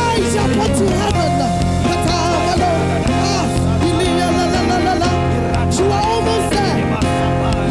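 Worship music playing at a steady level: held low bass notes and sustained chords, light drum hits, and a wavering melody line that bends and slides above them.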